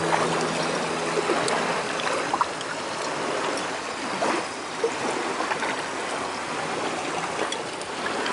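Sea surf washing on the shore, a steady rushing noise, with a few light clicks over it.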